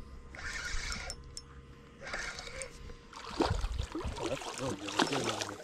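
Spinning reel cranked in short bursts as a hooked fish is brought in. From about three seconds in, the fish splashes and thrashes at the surface right beside the boat, and this is louder than the reeling.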